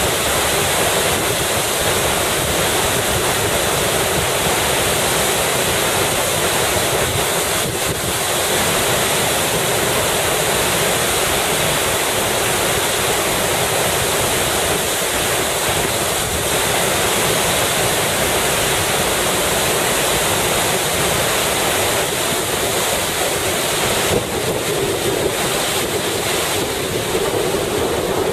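Waterfall in spate, swollen by heavy rain, giving a loud, steady rush of falling water.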